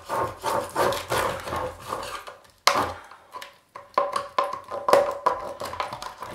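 A metal paint can being worked open by hand: a run of scraping clicks and knocks on the tin lid, with one sharp knock about two and a half seconds in. Through the second half the tin rings with a steady metallic tone.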